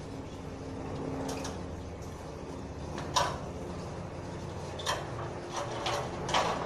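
Sharp knocks and clanks from a ladder as a person climbs down it and steps off: a single knock about three seconds in, then several more in quick succession near the end, over a low steady background hum.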